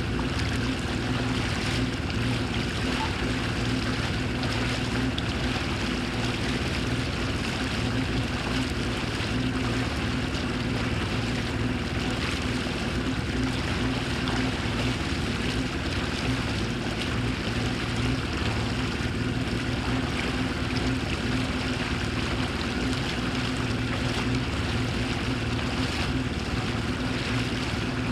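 Motorboat engine running at a steady speed, an even hum with a wash of water and wind noise.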